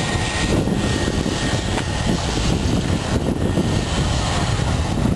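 Twin-turboprop aircraft's engines running at high power as it rolls down the runway on departure: a loud, steady propeller drone with a deep rumble underneath.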